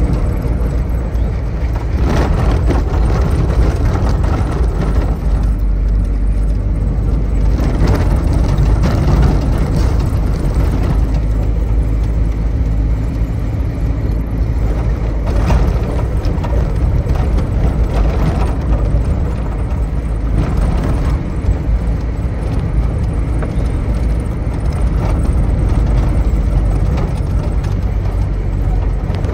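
Steady low rumble of a vehicle driving along the road, with scattered knocks and rattles throughout.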